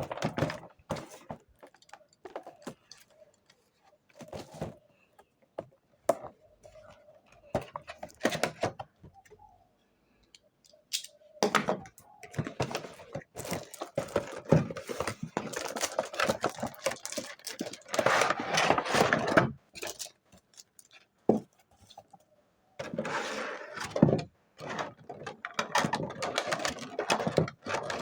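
Perfume gift-box packaging being handled and opened: scattered clicks and knocks, with long stretches of crinkling and rustling in the second half.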